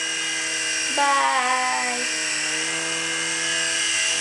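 Toy iHelicopter's small electric motors and rotors whining steadily in flight, the pitch shifting slightly now and then.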